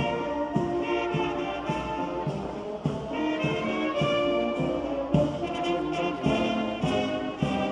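Brass band playing a march, trumpets and trombones over a steady drum beat.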